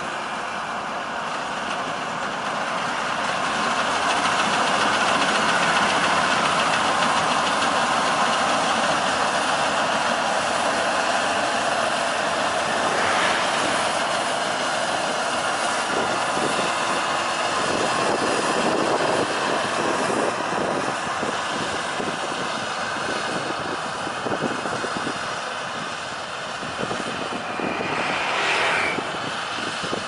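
Maxxi Bimo crawler rice combine harvester running steadily while it cuts and threshes standing rice.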